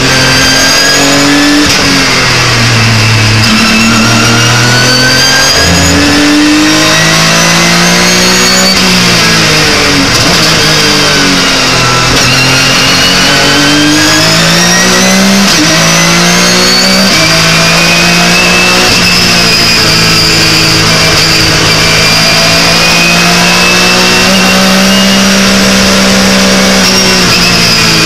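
Porsche 911 GT3 Cup race car's flat-six engine, heard from inside the cockpit, driven hard on a lap. The pitch climbs through the revs and drops back at each upshift, falls as the car slows about ten seconds in, then climbs again and holds high and nearly steady, flat out, through the second half.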